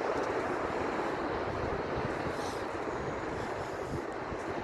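Steady wind blowing over the microphone, mixed with the wash of ocean surf.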